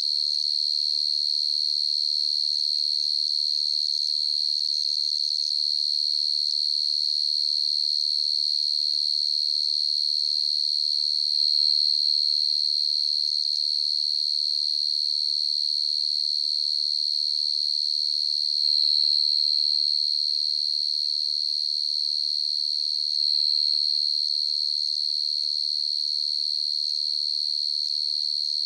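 A cricket singing: one steady, high-pitched trill that runs on without a break, swelling a little louder a few times.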